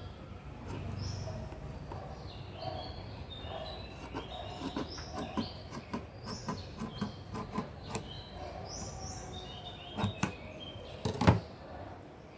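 Small birds chirping in the background in two spells of short, falling calls, over faint handling clicks. Two sharp knocks come a little before the end; the second is the loudest sound.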